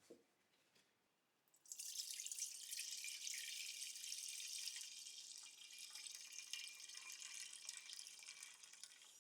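Liquid spraying or running with a steady, crackly hiss that starts a little under two seconds in and lasts about seven seconds.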